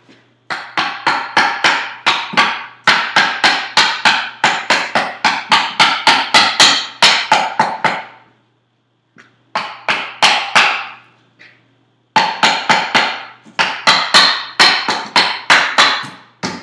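Back of a hatchet hammering homemade wooden wedges down into a split maple log: quick, sharp blows of about three a second, in three runs with short pauses, driving the split down the log.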